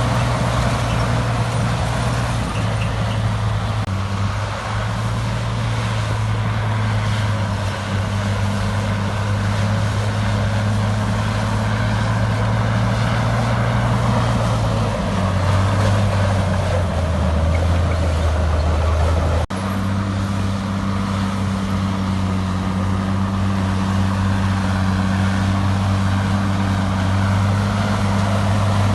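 Heavy diesel engine of earthmoving equipment running steadily. Its pitch drops for a few seconds past the middle, then the sound breaks off for an instant and carries on at the earlier steady pitch.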